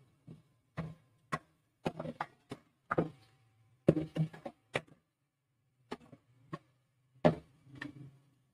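A spatula stirring chopped onion and chicken livers in a nonstick pot, knocking and scraping against the pan in about a dozen irregular strokes.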